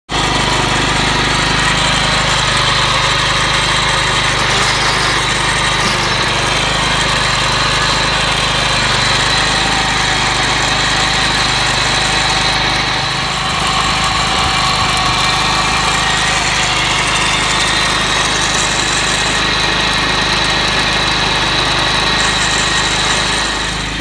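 Walk-behind lawn mower's gasoline engine running steadily, loud and close up.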